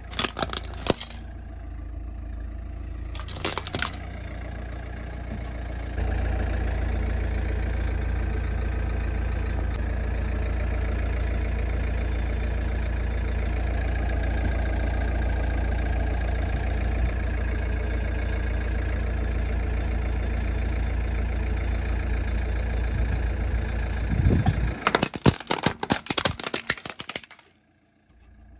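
Car engine running steadily, with sharp plastic cracks a few times in the first seconds; about 25 s in a plastic toy gun is crushed under the car's tyre, a dense burst of cracking and crunching lasting about three seconds.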